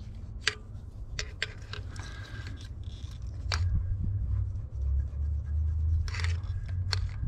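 Scattered sharp clicks and scrapes of hands and tools working at the distributor's parts, with a low rumble that grows louder about halfway through.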